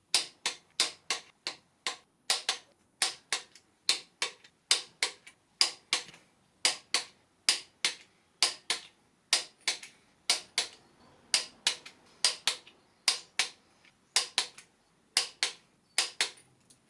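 Ratchet of a click-type torque wrench clicking: a steady run of sharp clicks, about three a second with brief pauses, as the engine's bearing cap bolts are tightened to 95 Nm.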